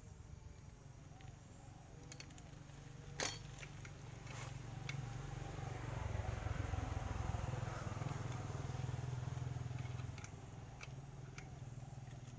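An engine running with a low, steady hum that grows louder in the middle for about four seconds, then eases off. One sharp click about three seconds in.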